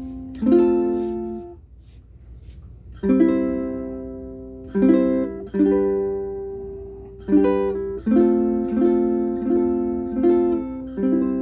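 aNueNue Green Bird ukulele with low-G strings, fingerpicked: about ten chords, each plucked and left to ring out, with a short pause between the first chord and the rest.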